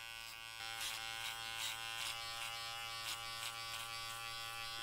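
Electric hair clippers buzzing steadily as they cut short hair over a comb at the side of the head, with a crisp rasp repeating as the blades pass through the hair. The buzz gets a little louder about half a second in.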